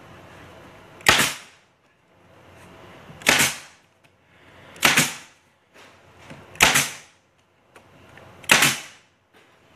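Staple gun firing five times, one sharp shot every second and a half to two seconds, driving staples to lock two strips of board together.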